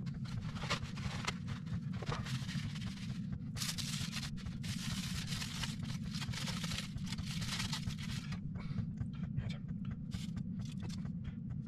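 Aluminium foil crinkling and rustling as a foil-wrapped package of sliced ham is opened by hand, in two long stretches, then a few lighter handling noises near the end.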